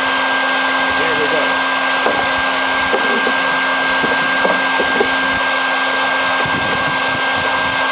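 Shop vacuum of a bee-removal vacuum system running steadily, drawing bees through the suction hose into the catch box. It makes an even airflow hiss with a constant low hum and a high motor whine. A few light knocks sound over it.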